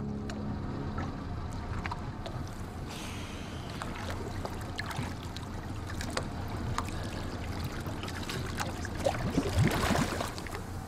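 Water splashing and lapping around a diver in the sea beside a small open boat, with many small splashes and a louder burst of splashing near the end.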